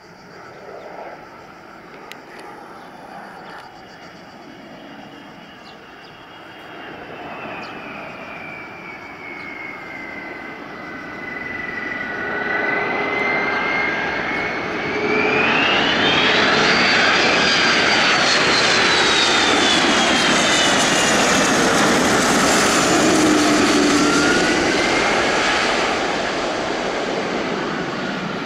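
Airbus A330-200's twin Pratt & Whitney PW4000 turbofans on final approach. The sound grows steadily louder as the airliner comes close and is loudest in the second half. A high engine whine slides down in pitch, then swings up and falls away again.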